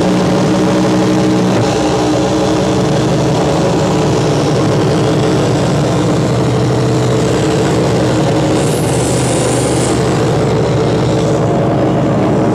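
Noise music played live: a loud, dense wall of sound with several sustained low droning tones under a steady hiss. A brighter high hiss swells in about nine seconds in and drops away a second or so later.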